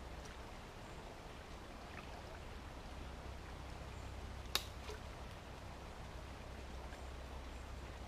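Faint splashing and trickling of shallow brook water as a person wades and works with her hands in it, clearing debris from a blocked stream, over a steady low rumble. One sharp click about halfway through.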